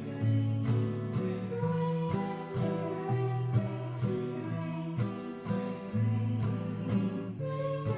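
Music: an instrumental stretch of a song, with sustained notes over a steady beat of about two hits a second.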